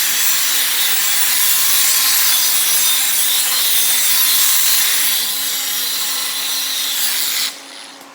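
Angle grinder grinding along the edge of a weld bead on a 3-inch solid steel shaft, cleaning it before the next pass. The grinding is loud and steady and stops about a second before the end.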